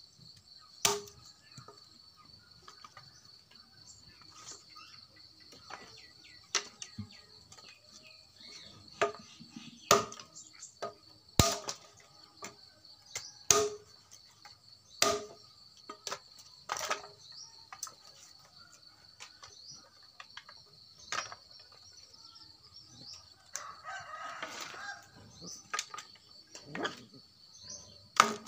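Dry branches being hacked with a long knife: sharp chops at irregular intervals, a second to several seconds apart, with a rustle of branches a few seconds before the end. A steady high buzz of insects runs underneath.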